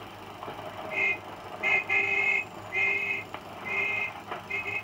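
A 1930s car's horn sounded in a string of short toots, about one a second, starting about a second in, heard through the thin, hissy optical soundtrack of an old film print.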